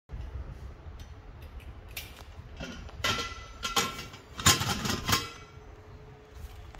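Brass pressure cooker lid being unlocked and lifted off: metal clicks, then clanks and scraping of brass against brass with brief ringing tones, loudest about four and a half seconds in.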